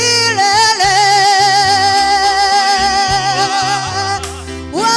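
Swahili gospel worship song: a singer holds a long note with vibrato on "milele" over instrumental backing with a stepping bass line, easing off briefly near the end.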